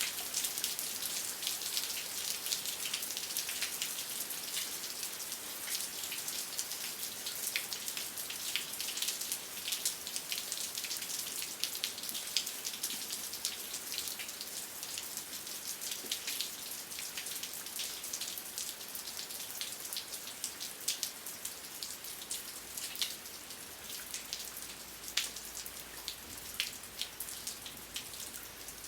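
Steady rain falling, a constant hiss with many distinct drops tapping, easing off a little in the second half.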